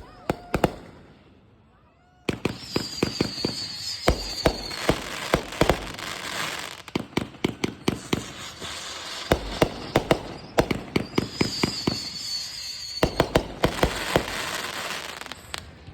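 Consumer fireworks going off: a few pops, then from about two seconds in long runs of rapid sharp cracks and bangs, with a high wavering whistle riding over two of the barrages.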